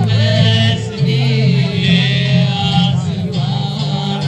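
A man singing with acoustic guitar accompaniment, a live performance amplified over loudspeakers.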